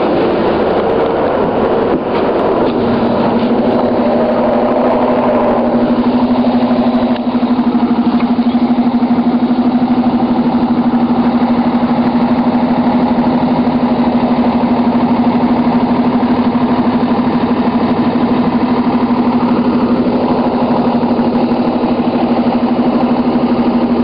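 Diesel engine of a New Flyer D40LFR transit bus running steadily, heard from inside the bus. A steady drone comes in about three seconds in and holds throughout.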